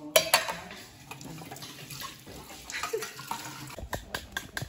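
Metal pots and pans clanking in a stainless-steel sink, loudest twice just after the start, with water splashing as it is poured over the dishes from a watering can. Near the end comes a run of quick, light clicks.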